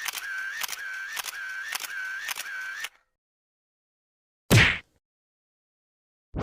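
A comedy sound effect of rapid, evenly spaced clicks, about three a second, with a whistling tone between them; it stops about three seconds in. After a pause comes one short, loud whoosh-like hit.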